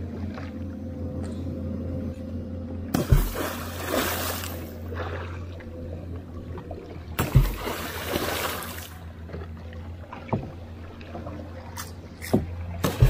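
A long wooden pole plunged hard into river water from a dugout canoe, as in traditional patundag net fishing. Each stroke is a heavy thump followed by a splash; there are two about four seconds apart, then a few lighter knocks, with a sharper one at the end.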